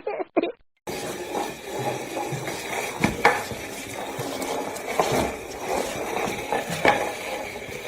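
Steady clattering with several sharp clinks, like utensils or dishes being knocked about.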